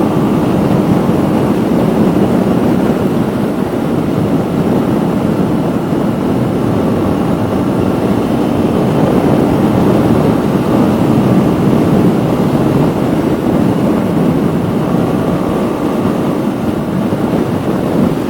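KTM Duke 125's single-cylinder engine running through an aftermarket full exhaust system while riding, a steady, loud rumble with no clear revving up or down.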